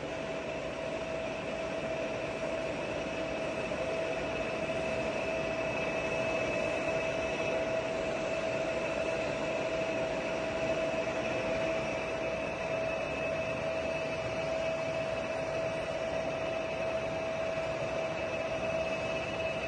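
Giana heavy-duty lathe running with its carriage travelling under power feed at maximum feed rate: a steady mechanical hum with a steady whine over it.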